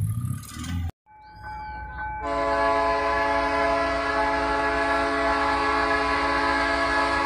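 Diesel locomotive's multi-chime air horn sounding one long, steady chord of several notes as the train approaches the crossing, over a low engine rumble. It comes in faintly just after a second in and at full strength about two seconds in.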